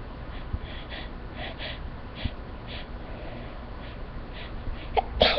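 A person's short, irregular, noisy breaths and sniffs during a sneezing fit brought on by an allergic reaction to flowers, with a sudden loud burst of breath near the end.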